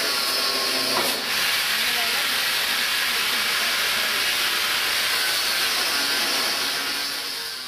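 Steady loud hiss of metal-cutting work on the frame of an old cast-iron restaurant stove being dismantled, with a brief knock about a second in, fading out near the end.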